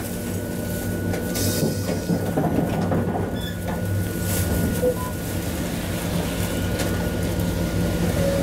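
Hakodate streetcar no. 719 running along its track, heard from inside the car: a steady low rumble and hum with a thin steady whine above it, and a few sharp clicks from the wheels on the rails.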